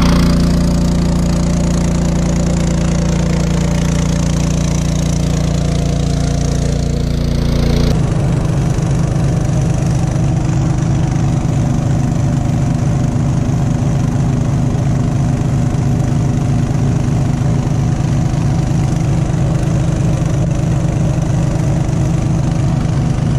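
Engine-driven water pump running steadily while draining the pond. About eight seconds in its sound changes abruptly to a more distinct, rapid pulsing chug.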